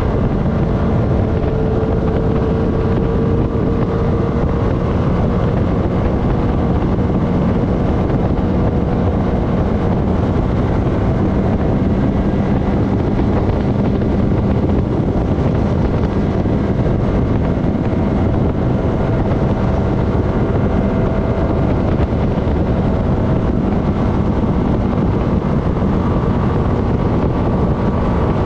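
Honda FourTrax Foreman ATV engine running at a steady pace on a paved road, with heavy wind noise on the microphone over it.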